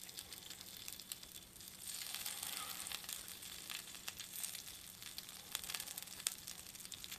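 Shrimp shumai sizzling on an electric hot plate: a steady soft hiss with scattered crackles and pops as the dumplings' bottoms begin to fry. The hiss swells a little about two seconds in.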